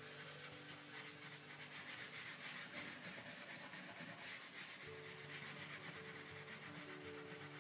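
Steel wool rubbed back and forth along the metal blade of an old hand saw with dish soap, a continuous rasping scrub that takes off grease, grime and surface rust.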